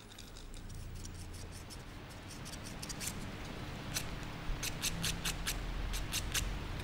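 Toenails being trimmed: a run of small, sharp, irregularly spaced snips over a low steady hum.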